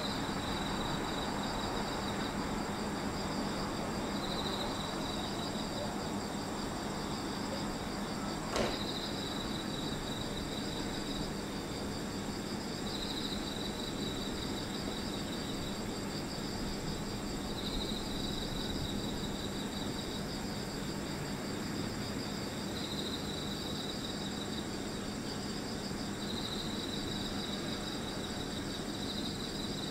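Steady low hum of electric trains standing at a platform, with insects trilling in short phrases every four or five seconds over a steady high whine. A single sharp click about eight and a half seconds in.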